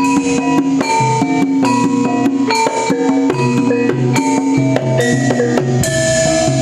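Javanese gamelan playing an opening gending: bronze metallophones ring out interlocking struck notes over steady drum strokes.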